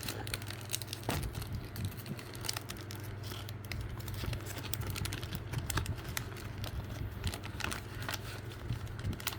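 Paper and plastic packaging of a model kit being handled: crinkling and rustling with many small clicks and taps, over a steady low hum.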